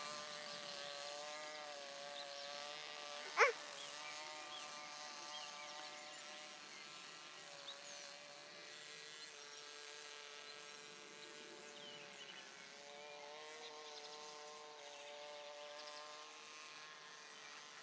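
Tiny Moskito 0.17 model combustion engine on a small radio-control plane buzzing in flight high overhead. It is a faint, thin, high buzz whose pitch wavers slowly up and down as the plane flies. A brief rising chirp cuts in about three seconds in.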